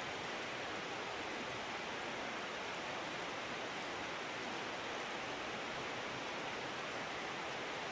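Heavy rain pouring down, a steady, even hiss of downpour.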